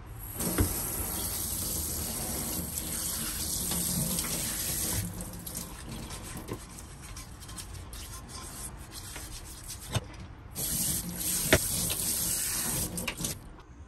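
Kitchen tap running into a stainless steel sink while a cast-iron pan is scrubbed with a sponge and rinsed. The water stream is loudest in the first few seconds, drops back to quieter scrubbing and splashing, and comes on full again near the end. There are a few sharp knocks.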